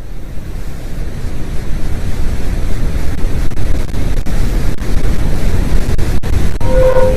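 Space-sound audio presented as the sound of Pluto: a loud, deep rushing noise that swells up over the first couple of seconds and then holds steady. Near the end, a steady droning tone comes in over it.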